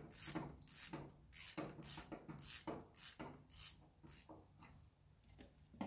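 Hand brush scrubbing back and forth over oily grime on the tractor's front end by the radiator hoses, about four strokes a second, growing fainter near the end.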